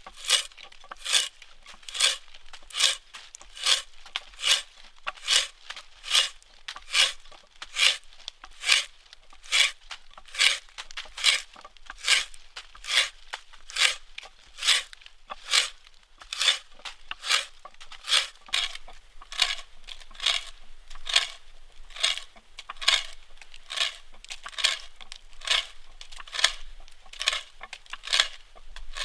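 T-handle spiral wood auger being turned by hand as it bores into a log: a crisp, crunching rasp of wood fibres being cut with each stroke of the handle, repeating evenly about two times a second.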